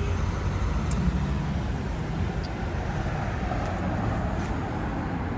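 Street traffic: a motor vehicle's engine running with a steady low rumble, easing off slightly toward the end.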